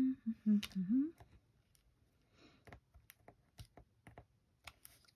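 Faint, scattered light clicks of metal tweezers picking a self-adhesive rhinestone off its backing sheet, after a brief hum of a woman's voice.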